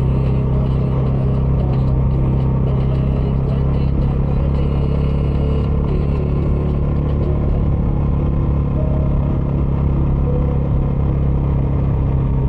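Bajaj Dominar 400's single-cylinder engine running through its stock exhaust at a steady cruise, a low, even engine note with no revving, mixed with road and wind noise.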